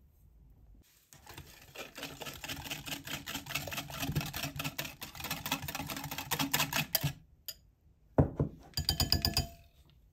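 Wire balloon whisk beating a thin liquid batter in a glass bowl: a fast clicking of the wires against the glass for about six seconds, then, after a short pause, a second shorter burst of clicks.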